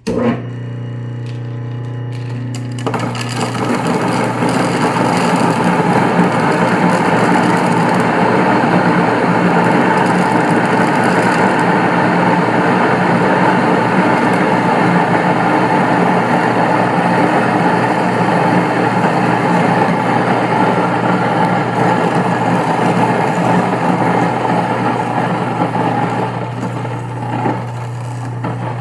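Golden Grain Grinder stone mill's 3/4 horsepower electric motor switching on and running with a steady hum. About three seconds in, corn poured into the hopper starts going through the grinding stones, a loud grinding noise that holds steady until near the end, when it eases back toward the motor's hum.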